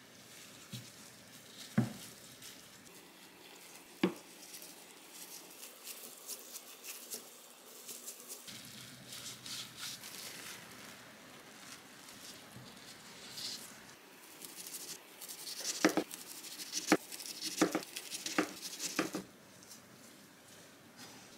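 Gloved hands handling rice, fillings and plastic wrap while rolling inside-out gimbap (nude kimbap): soft rustling and crinkling, with a sharp knock on the wooden cutting board about two seconds in and another at four. Near the end comes a quick run of about six sharp knife strikes on the end-grain wooden board as the roll is sliced.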